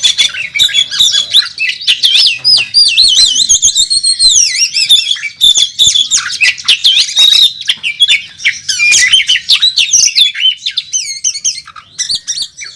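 Oriental magpie-robin (kacer) singing a loud, continuous fighting-style song full of mimicked calls of other birds: rapid rising and falling whistles, warbling trills and sharp clicking notes.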